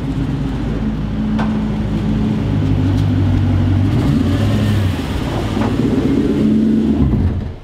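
V8-swapped Mazda B2200 pickup's engine running as the truck drives slowly at low revs, its note fairly steady.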